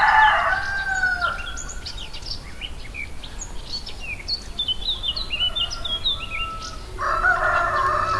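A rooster crowing twice, once at the start and again about seven seconds in, with small birds chirping in quick short notes in between.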